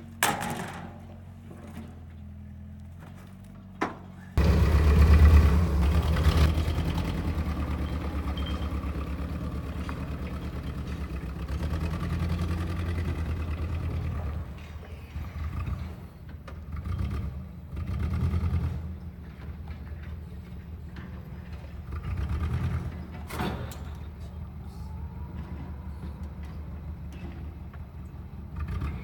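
LPG forklift engine running loudly as the truck drives, its low note swelling and easing several times with throttle. It starts abruptly about four seconds in; before that there are only a couple of sharp metallic clicks from a ratchet strap being worked.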